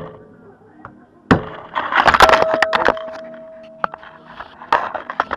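Sharp metal knocks, then a burst of clattering of steel parts and tools on a workbench, leaving a ringing metal tone that fades over a couple of seconds, with more single knocks near the end. This is the work of fitting a small needle bearing into a Mitsubishi Pajero II front axle stub.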